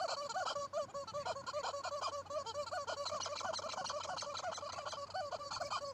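A flock of farmyard fowl calling together, with many short, overlapping calls in quick succession.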